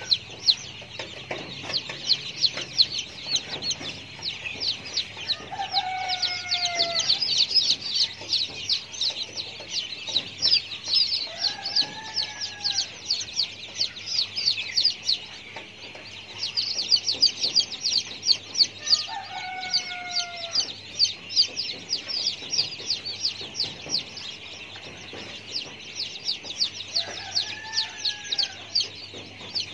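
Chickens: a long crowing call about every seven seconds, four times, over constant rapid high-pitched chirping.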